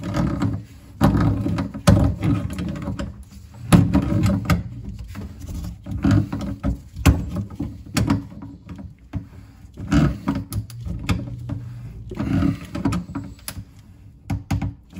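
A wrench clicking, knocking and scraping against the metal locknut of a kitchen sink basket strainer as it is tightened from under the sink. The knocks come at irregular intervals, mixed with low rumbling clunks of handling.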